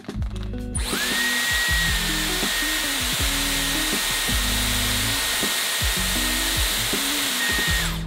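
Dyson Airwrap hair styler switched on about a second in: its motor whines up to a steady high pitch over a loud rush of hot air from the curling barrel, then cuts off just before the end.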